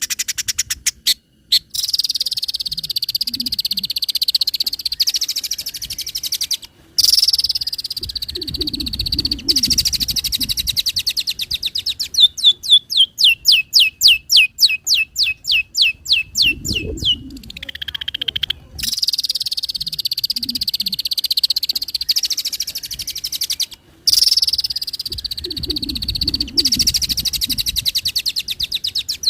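Long-tailed shrike (cendet) singing a varied, mimicking song. High warbling phrases alternate with a fast run of sharp, descending chirps, about five a second, in the middle, ending in a falling glide. Low croaking sounds come in underneath a few times, and the song breaks off briefly and suddenly several times.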